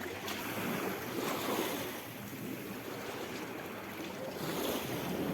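Small sea waves splashing against a breakwater and the shore, swelling and easing every second or two, with a little wind on the microphone.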